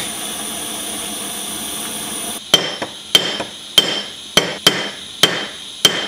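A handheld gas torch hissing steadily for about two and a half seconds, then stopping. A hammer then taps the heated steel lock piece of a folding knife on an anvil: seven ringing metal strikes about every half second or so, to squish the lock slightly wider and take up its front-to-back looseness.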